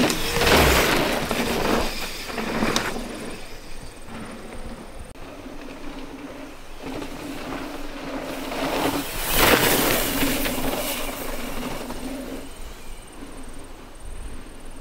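Mountain bike running fast down a dirt flow trail: tyre and drivetrain rattle with wind rushing over the helmet or bike camera, loudest in two surges about half a second in and around nine to ten seconds, over a steady hum that drops in and out.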